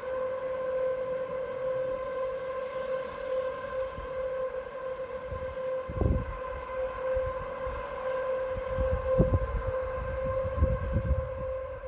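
A steady, horn-like drone holding one pitch with a stack of overtones: the so-called mystery 'trumpet' sound of unexplained origin. Low rumbling thumps break in about halfway and again near the end.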